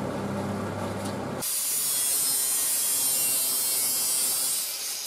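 Angle grinder with a thin cutting disc slicing through the steel wall of a gas canister: a steady high hiss that starts suddenly about a second and a half in. Before it, a low steady hum.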